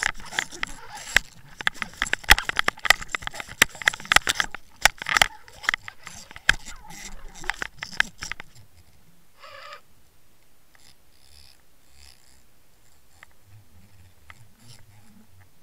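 Rapid clattering and knocking picked up underwater as a hooked northern pike thrashes and shakes the swimbait and the camera rig on the line. About eight seconds in it drops to a few faint ticks.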